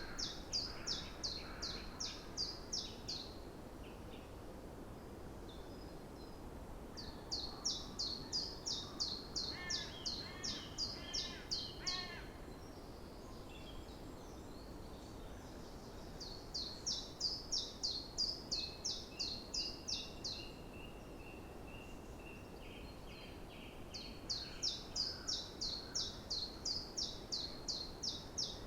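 Songbird singing a fast run of evenly repeated high notes, each song lasting a few seconds and coming four times with pauses between. Softer calls from other birds come between the songs, over a steady low background hiss.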